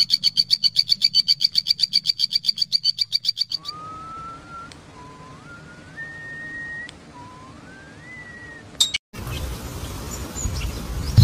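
Animal calls. First comes a rapid, high-pitched pulsed trill that stops abruptly, then a series of four slurred whistled notes, each rising in pitch. A short stretch of hiss follows near the end.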